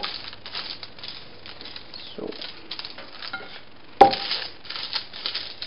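A brush swishing and scratching over cotton fabric as melted beeswax is painted on, in a series of short strokes, with a sharp knock about four seconds in.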